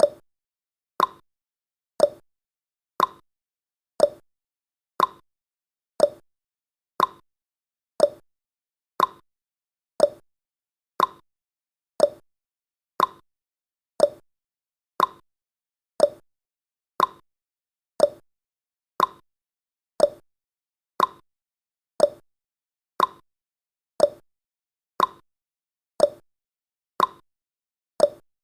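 Countdown timer's clock-tick sound effect: one short, sharp tick every second, steady and evenly spaced.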